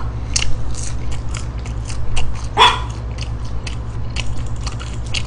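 Close-up chewing and crunching of fried chicken nuggets, with many small crunchy clicks over a steady low hum. One short, sharp, pitched sound cuts in about two and a half seconds in.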